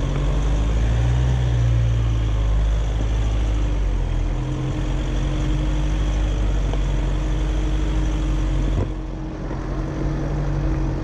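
A Jeep's engine running at low, steady revs, with a short rise about a second in. Near the end a single knock is heard, after which the sound turns softer and duller.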